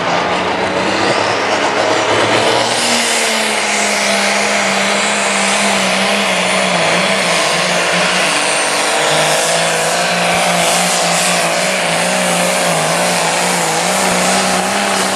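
A John Deere pro stock pulling tractor's turbocharged diesel engine at full throttle under heavy load as it drags the weight-transfer sled down the track. The engine settles into a high, steady note a couple of seconds in, with small dips in pitch as it pulls.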